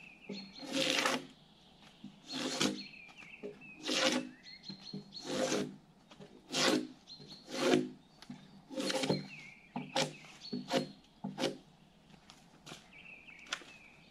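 Gränsfors Bruks drawknife peeling bark off a log in a run of about ten rasping pull strokes, roughly one every second or so.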